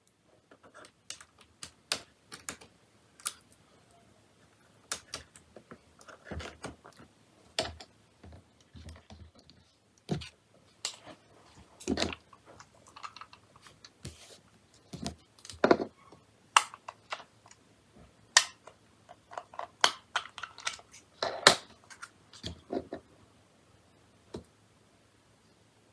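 Keyboard clicking and clacking as it is handled and its keys are pressed, at an uneven pace with no steady typing rhythm. A few louder clacks come around the middle and near the end.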